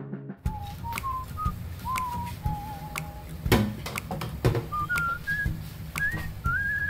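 A person whistling a slow tune, one note at a time with short pauses, the notes climbing higher toward the end. A sharp clack about halfway through as the glass lid comes off the frying pan, then light taps of chopsticks against the pan.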